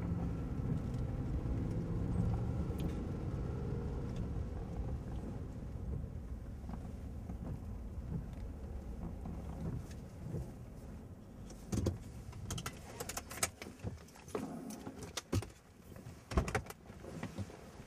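Car's engine and road rumble heard from inside the cabin, fading as the vehicle slows to a stop. Then a string of sharp clicks and knocks inside the cabin.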